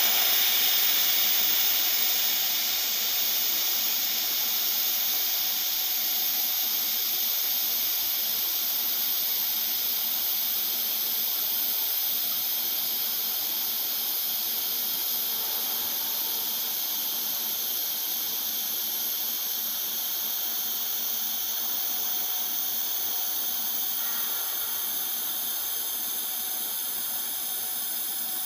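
TIG welding arc burning on a carbon steel boiler-panel pipe joint: a steady high hiss.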